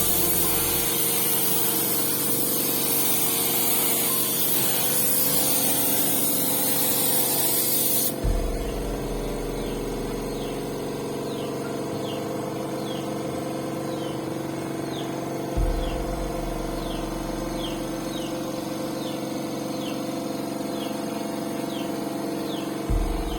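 Steady hiss of paint being sprayed, cutting off suddenly about eight seconds in. After that comes a steady hum with faint short chirps repeating every half second or so, broken twice by a brief low thump.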